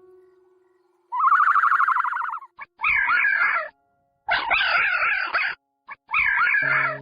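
Animal calls: a rapidly pulsed call falling in pitch, followed by three harsh, rasping calls. Steady musical tones come in near the end.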